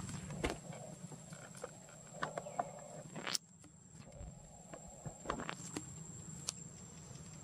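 Scattered light taps and scuffs of macaques moving about on rock, over a thin steady high insect drone. The low background hum cuts out abruptly about a third of the way through.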